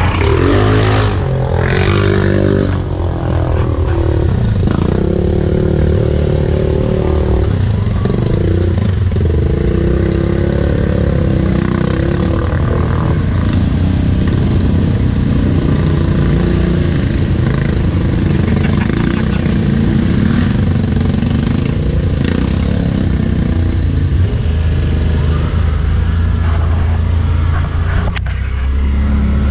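Off-road vehicle engine running close by, its pitch rising and falling as the throttle is worked on and off.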